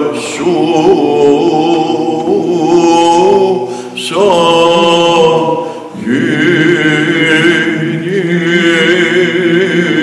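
Byzantine chant by men's voices: a lead cantor sings the ornamented melody over a steady low drone (the ison) held by the other singers. The melody breaks briefly about four seconds in and again near six seconds, then takes up a new phrase.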